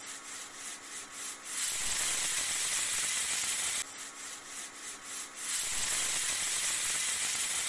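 A steady hiss with faint crackles, softer at first and then fuller, that cuts off abruptly about halfway through and starts over the same way: one short hissing sound effect played twice in a row.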